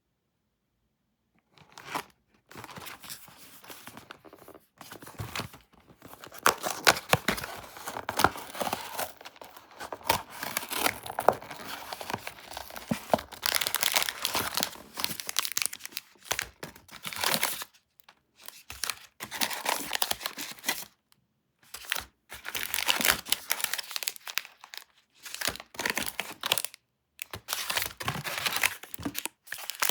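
Wrapper of a Nestlé Lion cereal bar being torn open and crinkled, in stop-start runs of crackling with short pauses, after a silent first second or so.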